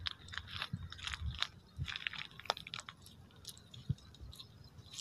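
Monofilament cast net being handled and gathered in the hands, giving irregular crackling and small clicks as the mesh and weighted edge are sorted for a throw.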